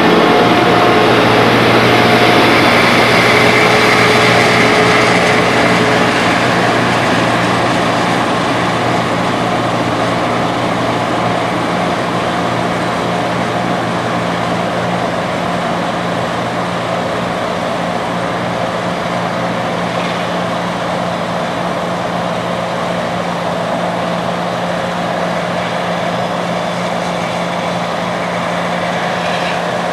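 Heavy diesel road-construction machinery running steadily, a little louder in the first few seconds before easing off slightly.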